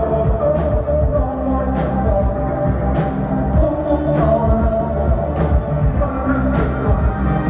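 Live synth-pop band playing through a PA: heavy synth bass, drums with a sharp hit about every second, and a man singing into a microphone.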